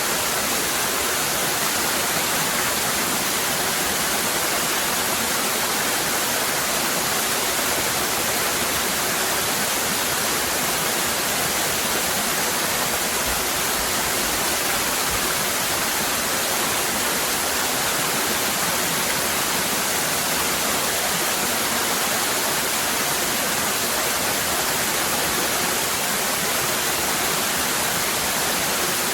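Waterfall cascading: a steady, even rush of water with a bright hiss and no breaks or changes.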